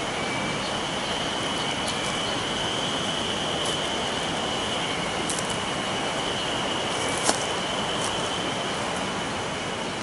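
Cicadas singing in a steady, unbroken drone over a constant rushing hiss, with a few sharp clicks, the loudest about seven seconds in.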